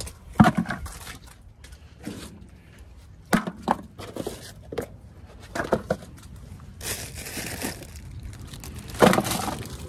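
Handling noises: a plastic bucket holding used oil and fuel filters being moved, and things shuffled about in a tractor's metal toolbox, giving scattered knocks and rustling.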